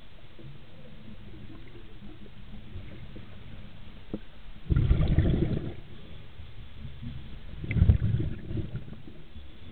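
Scuba diver's exhaled breath bubbling from the regulator, heard underwater, in two bursts about a second long, one halfway through and one near the end, over a low steady rumble.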